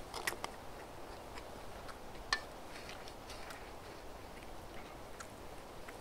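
A person eating spicy pork and vegetable wraps: chewing, with scattered small clicks and mouth sounds and one sharper click about two seconds in, over a faint steady hiss.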